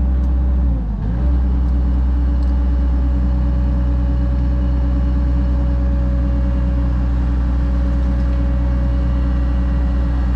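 Excavator's diesel engine running steadily at working speed, with a strong low hum; about a second in the note briefly sags and then picks back up.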